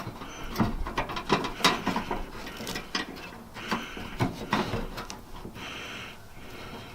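Irregular clicks and knocks of hand tools on metal tailgate latch parts and linkage rods during installation.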